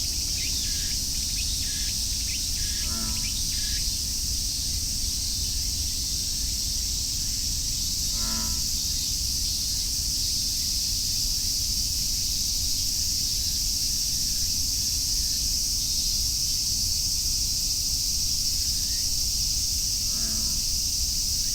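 Steady, continuous chorus of cicadas. Three times, an American bullfrog gives a short, low, pulsing call that sounds like snoring.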